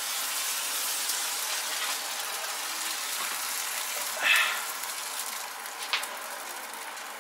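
Freshly oven-baked pork and beef kofte kebabs sizzling in the hot fat and juices of a foil-lined roasting tin: a steady hiss that slowly fades, with a brief louder spit about four seconds in and a small tick near six seconds.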